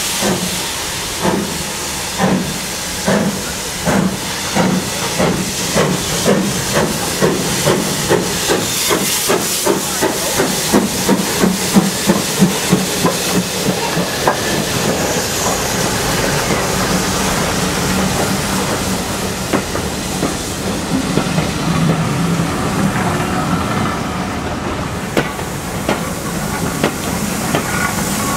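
Steam locomotive getting under way: exhaust chuffs start slow, about one a second, and quicken to about three a second over steam hiss as it passes close by. The chuffs then fade into the steady rumble of carriages rolling past, with wheels clicking over the rail joints.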